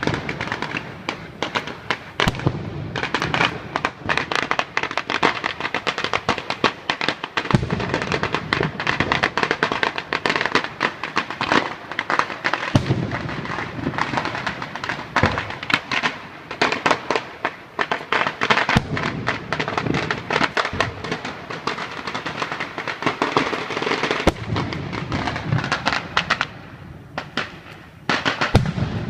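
Fireworks and firecrackers going off in a dense, continuous barrage of rapid cracks and pops, with a few heavier bangs standing out.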